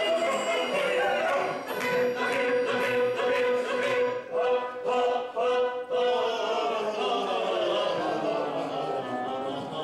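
Operetta singers with an opera orchestra performing a drinking song, sung in Bulgarian. One note is held for several seconds in the middle, then the line falls away as the ensemble sings on.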